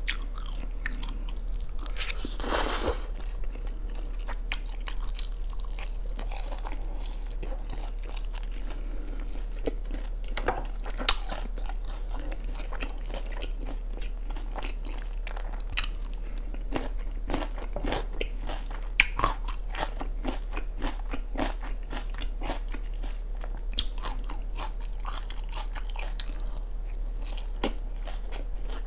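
Close-miked eating: a noodle slurp about two seconds in, then steady chewing with many sharp, crisp crunches and wet mouth clicks.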